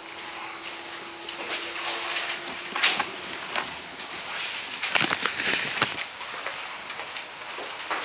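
A large vinyl roof covering and paper sheets rustling and scraping as they are lifted and shifted over a car roof, with a sharp snap a little before three seconds in and a busier flurry of rustling about five seconds in.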